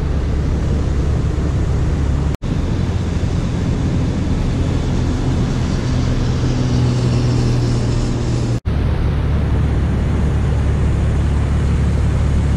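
A vehicle engine running with a steady low drone. It drops out abruptly for a split second twice.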